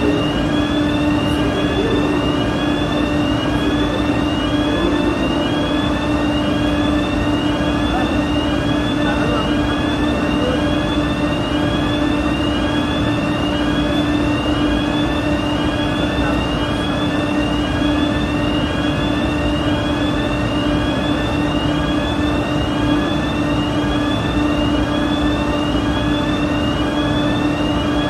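Station fire alarm sounders giving a short rising sweep repeated over and over, a little more than once a second, during an alarm system test. Under it runs a loud, steady mechanical rush with a constant low hum.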